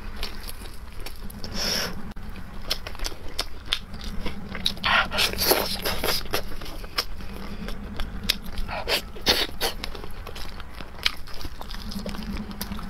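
Braised pork knuckle being torn apart by hand and chewed: wet tearing of skin and meat from the bone, with many small sticky clicks and smacks, louder about five and nine seconds in.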